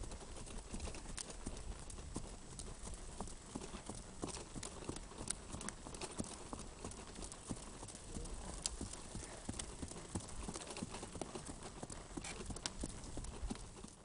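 Paint horse walking on a dirt woodland trail, its hooves clip-clopping in an uneven stream of soft thuds and clicks.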